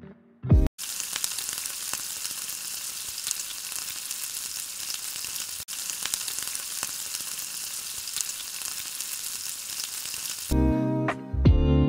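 Battered spinach leaves deep-frying in hot oil in a kadai: a steady sizzle full of small crackling pops, starting about a second in and stopping near the end.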